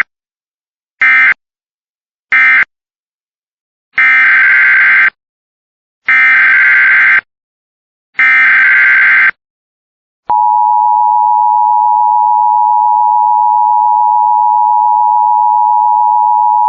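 Emergency Alert System data and attention tones. First come three short buzzing data bursts, the end-of-message code that closes one alert. Then three longer bursts, the SAME header that opens the next alert, and about ten seconds in the steady two-tone attention signal starts and holds.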